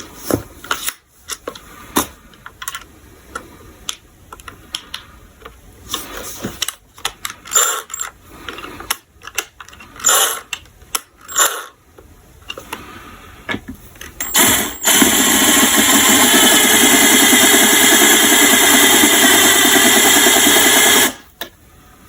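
Scattered clicks and knocks of tool handling, then a power drill runs at a steady speed for about six seconds and stops abruptly. It is turning a screw extractor in reverse, boring into a stripped screw head.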